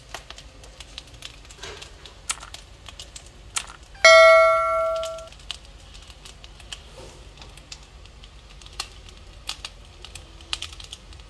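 Irregular crackling clicks from a stone dolsot bowl of bibimbap heating on the stove, the rice crisping against the hot stone. About four seconds in, a loud bell-like ding rings for about a second and fades.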